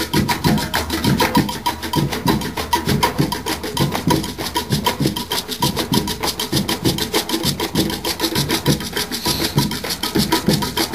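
Percussion group of several drums, hand drums and larger carried drums, playing together in a fast, steady rhythm.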